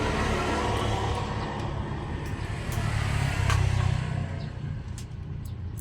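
Low vehicle engine rumble that swells to its loudest a little past the middle and then fades, like a motor vehicle passing by. A few light metallic clicks are heard over it.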